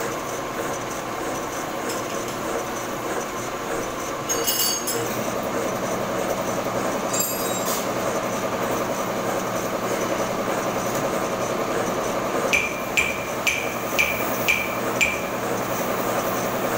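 Metal lathe running with a large cylindrical steel workpiece spinning in its chuck: a steady mechanical drone. There is a brief light metallic rattle at about four and a half and about seven seconds. Near the end come six sharp, ringing metallic ticks, evenly spaced at about two a second.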